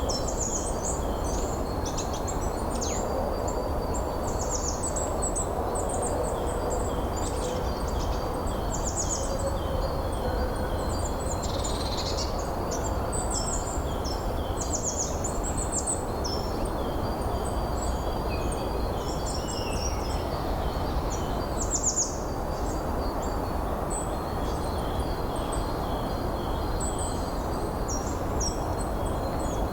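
Steady wind noise with several small songbirds singing over it, a dense run of short, high chirps and trills throughout.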